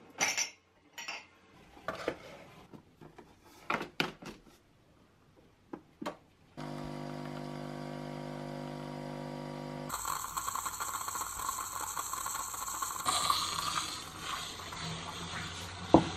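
Ceramic mugs clinking in a wire dish rack, then a coffee machine running: a steady hum for about three seconds that turns into a higher hiss while coffee streams into the mug, and a single clink near the end.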